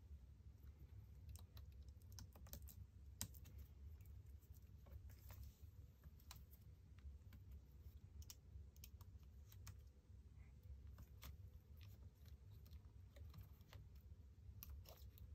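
Faint, scattered small clicks and taps from gloved fingers handling ribbon cables and plastic parts inside an open laptop, over a steady low hum.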